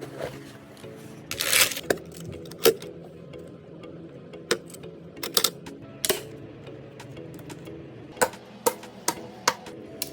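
Background music with steady sustained chords, over irregular sharp clicks and a short rustle about a second and a half in.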